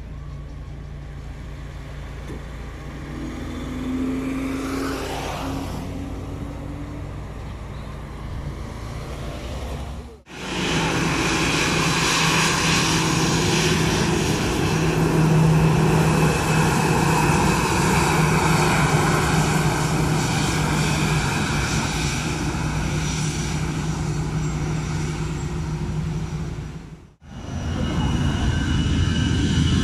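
Airbus A320-family jet airliner's engines running on the runway, a steady noise with a low hum and a high whine. It is quieter for the first ten seconds, then a sudden cut to much louder, close engine noise, and another cut near the end.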